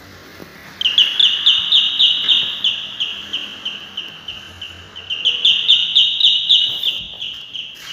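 Electronic doorbell sounding a high, pulsing warble of about four beats a second, in two rings: the first starts about a second in and fades, the second starts about five seconds in. The newly wired bell circuit is on test and working.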